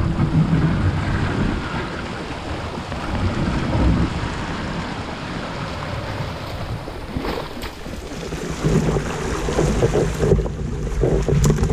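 Wind rushing over the microphone, with water sloshing around a canoe on open water. The noise swells and eases unevenly in gusts.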